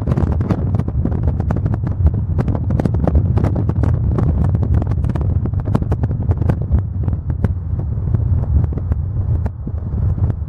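Strong wind buffeting the microphone: a loud, steady low rumble with many sharp crackles and pops on top.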